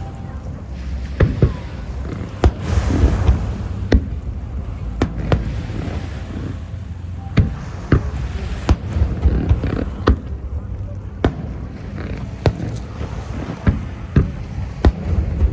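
Aerial fireworks exploding in an irregular string of sharp bangs, some in quick clusters, over a low rumble.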